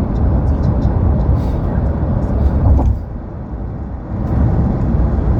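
Low, steady road and engine rumble inside a moving car's cabin, easing for about a second around three seconds in.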